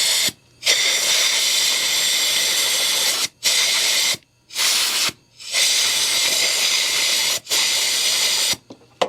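Compressed-air blow gun hissing in about six blasts separated by short pauses, the longest blasts lasting two to three seconds, blowing brake cleaner and oil off an ignition coil. It stops a little before the end.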